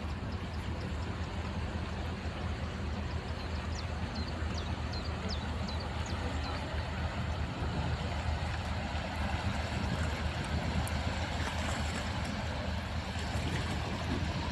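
Steady low drone of a ship's engine over a continuous hiss of wind and water. A few short, faint high chirps come in about four to six seconds in.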